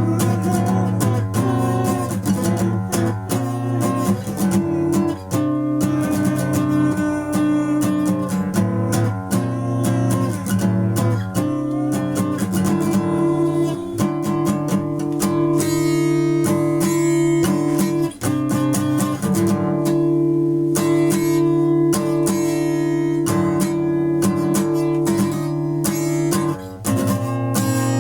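Experimental punk guitar music: strummed chords that ring out and are held, with brief breaks about 18 and 27 seconds in.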